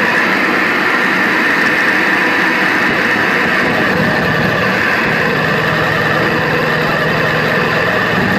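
Live noise music: a loud, dense, unbroken wall of amplified noise, with a steady low drone joining about halfway through.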